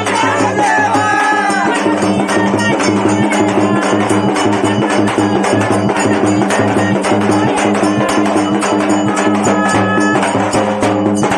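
Traditional devotional folk music: a steady held drone under fast, even percussion strikes, with a voice singing near the start and again briefly toward the end.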